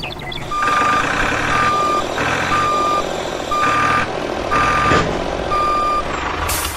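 Truck reversing alarm beeping in a single steady tone, about once a second, over a low engine rumble. A short burst of hiss comes near the end.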